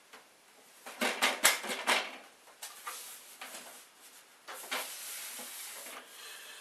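Clicks, knocks and rattles of an inkjet printer's plastic casing as it is worked with a screwdriver and its scanner lid is handled. There is a quick run of sharp clicks about a second in, then scattered clatter and scraping.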